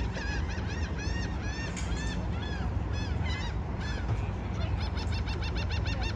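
A big flock of birds calling together: many short, arched chirps overlapping without pause, quickening into fast runs of calls about three-quarters of the way through, over a steady low rumble.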